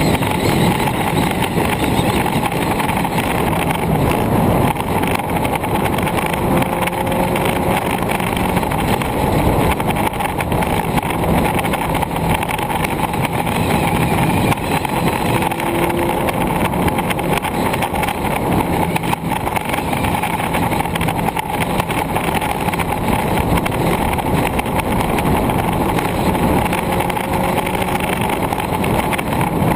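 Steady wind and road noise on a moving camera travelling along a road, with a faint low hum underneath.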